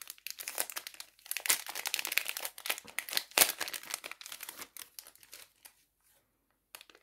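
Small jewellery packaging being handled and crinkled: a dense crackle for the first four seconds or so that thins out and stops near the end.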